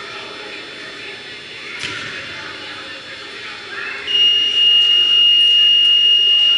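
Gym scoreboard buzzer sounding one long, steady high tone from about four seconds in, over the murmur of voices in the gym.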